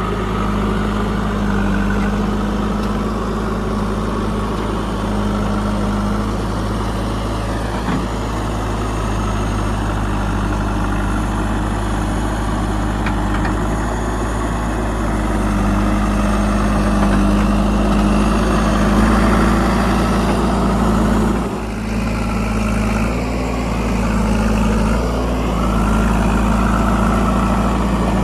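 JCB 3DX backhoe loader's diesel engine running steadily, with a short dip about two-thirds of the way through.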